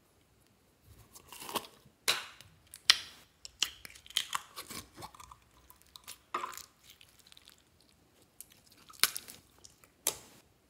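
Clear pink slime with foam pieces being squeezed and pulled by hand out of its plastic jar and dropped into a tub of mixed slime: irregular wet squelching and crackling pops, with a few sharper snaps, loudest about three seconds in and near the end.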